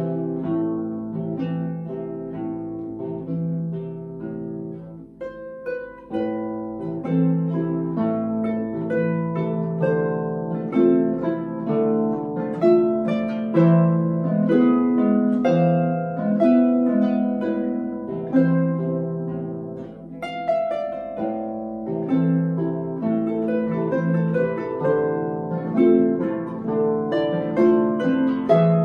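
Two Celtic harps playing a habanera as a duet: plucked, ringing notes, with low bass notes under a higher melody.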